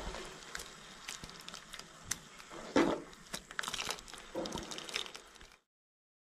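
A metal ladle scraping and clinking against a metal pot as it stirs and lifts thick okra curry, with irregular sharp clicks and a louder knock about three seconds in. The sound cuts off to silence shortly before the end.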